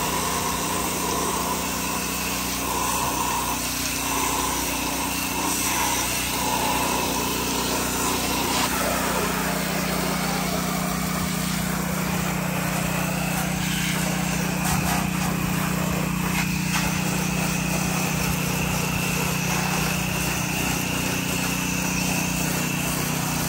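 Small gas engine of a pressure washer running steadily under load while the spray wand rinses siding and trim, with a constant hiss of water spray. The engine note changes slightly about eight seconds in.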